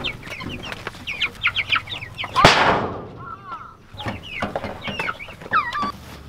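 A flock of young white meat chickens calling while they crowd the feeder, with many short high chirps and clucks. There is one loud, sudden noise about two and a half seconds in.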